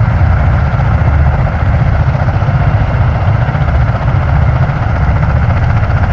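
Three US Marine Corps MV-22 Osprey tiltrotors idling on the ground with engines and proprotors turning. It is a steady, loud, low rotor throb with a hiss above it.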